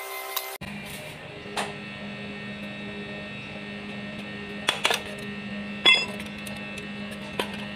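Several metal clinks and knocks from tools and parts on a partly stripped Komatsu four-cylinder diesel engine. The loudest is a ringing clank about six seconds in, over a steady low hum.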